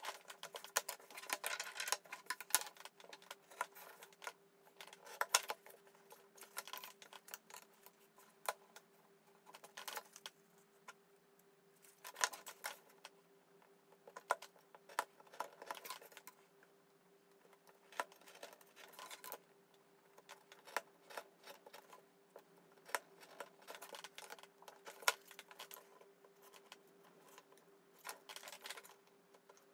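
Greyboard pieces, a plastic ruler and craft tools being handled on a cutting mat: irregular taps, clicks and short scrapes, over a faint steady hum.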